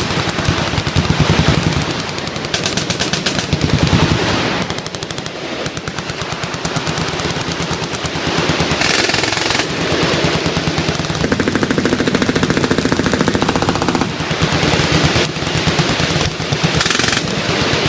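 Several machine guns firing full-auto at once: long, overlapping bursts of rapid shots with hardly a pause.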